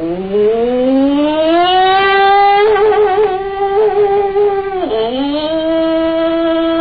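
An old man's voice intoning one long, sustained note in the Aikido kotodama voice exercise. The pitch slides upward at the start and then holds steady, wavering a little in the middle. About five seconds in it dips and breaks briefly, then the note is taken up again and held steady.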